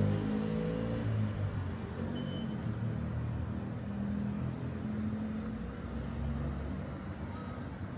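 A motor vehicle's engine running, a low steady hum that eases off slightly toward the end, with a short high beep about two seconds in.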